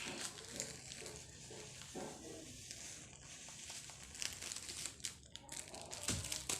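Faint crinkling and rustling handling noise with scattered light clicks, over a low steady hum.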